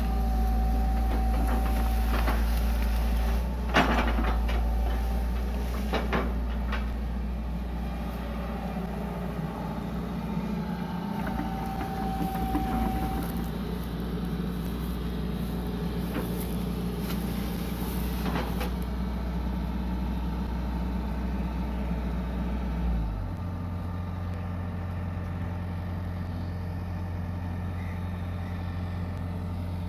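Hitachi EX120 long-reach excavator's diesel engine running under load while the bucket digs and rips out vegetation, with several sharp knocks and cracks, the loudest about four seconds in, and a brief high hydraulic whine twice. About three-quarters of the way through the engine note changes and then runs steady.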